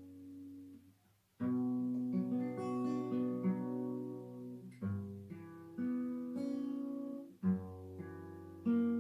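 Acoustic guitar playing slow chords. A chord rings and fades away about a second in, and after a brief pause a new chord is struck, with single notes picked over it. Further chords follow every second or so.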